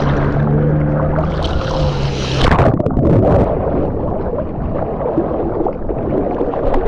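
A boat's motor running steadily, then a sharp knock about two and a half seconds in, after which the hum gives way to rushing water and wind noise.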